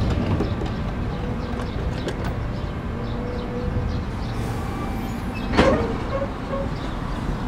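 Electric commuter train pulling out of a station platform: a steady low rumble with a faint steady tone coming and going, and one brief louder clank about five and a half seconds in.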